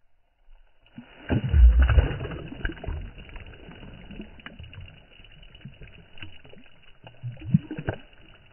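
Lake water splashing and sloshing as a tiger trout is released by hand and kicks away, loudest about a second or two in, then lighter swirling and dripping of water around the hand.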